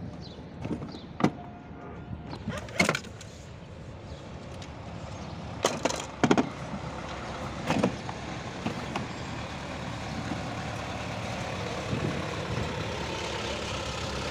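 A handful of sharp plastic clicks and knocks as the dashboard panel of a kids' ride-on toy car is pried loose with a screwdriver and lifted off. A steady background noise grows louder near the end.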